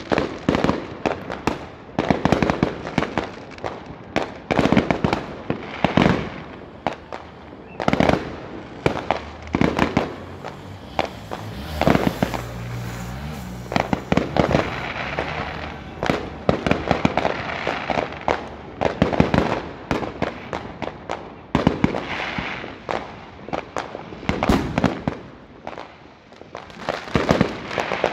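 Fireworks going off all around: aerial shells and firecrackers bursting in dense, irregular bangs and crackles, several a second at times.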